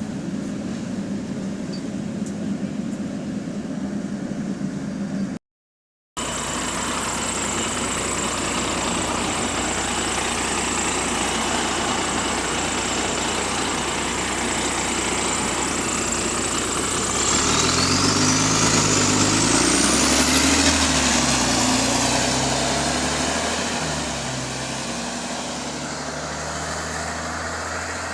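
Diesel engine of a double-decker bus running with a leaking exhaust. It cuts out to silence for under a second about five seconds in. Past the halfway point the bus pulls away: the engine note rises and a high whine climbs, then both ease off again.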